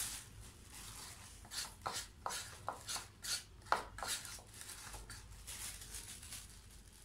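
A metal spoon scraping whipped cream from a plastic bowl and pushing it into a thin polythene bag. It makes a run of short, irregular scrapes and taps, most of them between about one and a half and four and a half seconds in.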